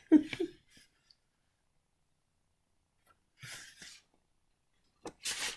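Mostly silence, broken by a short voice sound at the start, a soft rustle about three and a half seconds in, and a louder rustle near the end as a picture-book page is handled and turned.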